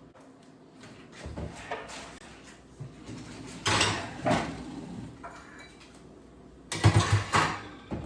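Metal cupcake pans clattering on oven racks and the oven door being worked, in three bursts of knocks and scrapes, the loudest near the end.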